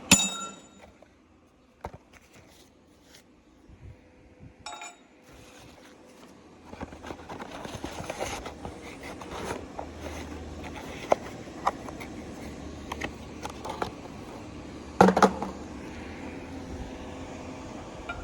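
Heavy metal parts being handled: a ringing metal clank right at the start and a lighter ringing clink about five seconds in, then scattered knocks and one loud knock near the end, over a steady low hum that starts about seven seconds in.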